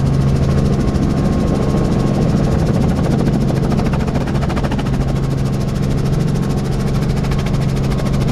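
Helicopter engine and rotor running steadily, heard from inside the cabin as it lifts off and climbs away: a steady, loud low drone.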